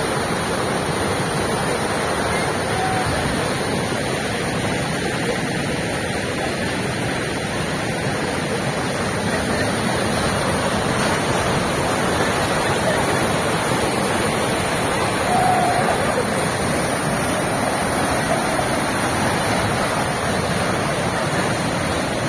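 Muddy floodwater of a swollen river rushing and churning over rocks: a steady, loud wash of water noise.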